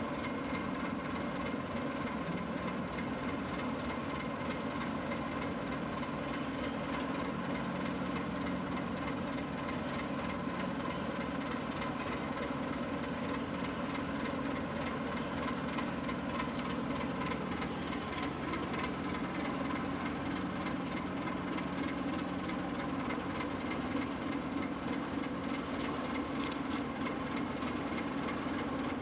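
Steady drone of ship diesel engines and machinery during berthing, a constant hum of several held tones over a low rumble.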